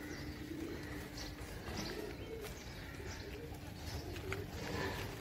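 Domestic pigeons cooing in repeated low warbling calls, with short high bird chirps over them.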